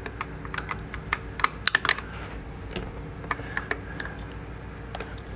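Light, irregular clicks and ticks of a long screwdriver working screws out of a motorcycle's plastic handlebar cover. The clicks cluster between about one and two seconds in and thin out after, over a faint steady hum.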